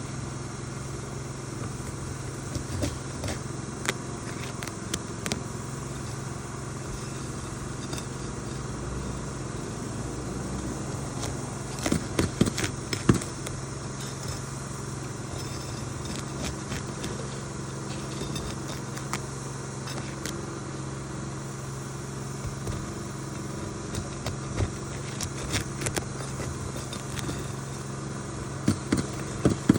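Roofing work: scattered sharp knocks and clicks from hand tools or nailing on shingles over a steady low hum, with a cluster of knocks about twelve seconds in and more near the end.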